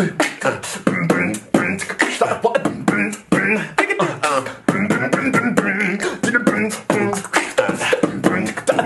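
A beatboxer's mouth-made hip-hop beat: rapid, closely spaced clicks and snare hits mixed with pitched, sung vocal sounds.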